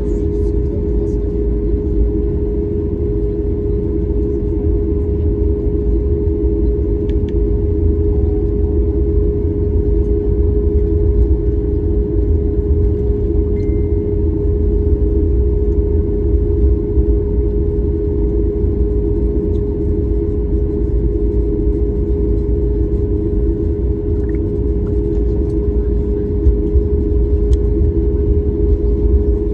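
Cabin noise of a flydubai Boeing 737 taxiing: the jet engines running at low taxi thrust as a steady low rumble, with a steady hum over it.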